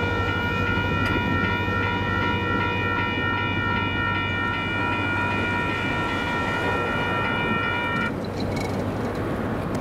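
Railroad crossing warning bell ringing steadily while the gate arms rise, cutting off suddenly about eight seconds in as the gates reach upright and the lights go dark. A steady rushing noise runs underneath.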